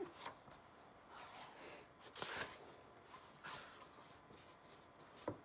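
Pages of a picture book being flipped and handled: a series of soft paper swishes and rustles about a second apart, the loudest a little over two seconds in.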